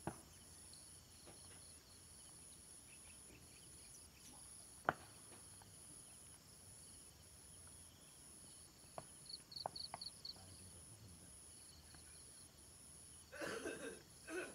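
Insects chirring steadily: a high, pulsing trill at about two pulses a second. One sharp click about five seconds in and a short burst of rustling noise near the end.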